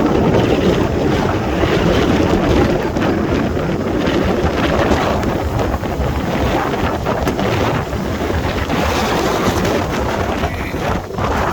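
Strong wind blowing across the microphone: a loud, continuous rumbling rush.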